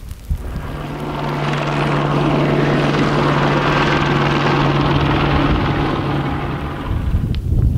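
Helicopter flying nearby: a steady engine and rotor drone with a constant low hum, swelling in about a second in and fading away near the end.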